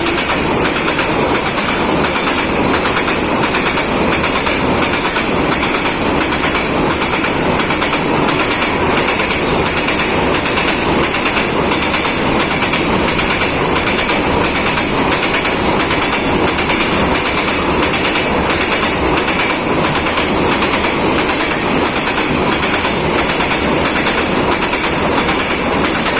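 Train running along the track: a loud, steady rumble with the rhythmic clickety-clack of wheels over rail joints.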